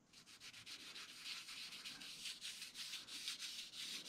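Cloth dabbing and rubbing wood stain onto a wooden dowel plug: a quick run of faint scuffing strokes.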